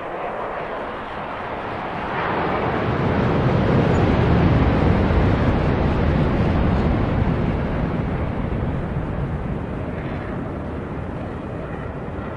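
Aircraft flying past: a rushing roar that swells from about two seconds in, peaks with a deep rumble around the middle, and slowly fades away.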